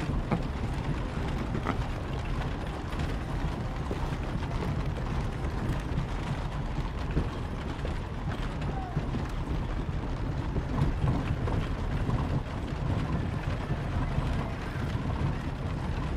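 Horse-drawn carriage rolling, heard from inside the cabin: a steady low rumble with continuous rattling and creaking of the wheels and wooden body.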